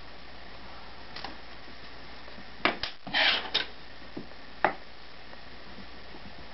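Light clicks and knocks on a wooden tabletop as a pencil is set down and cast lead bullets are handled. A quick cluster of clicks with a short scrape comes about halfway through, and a single sharper knock follows a second or so later.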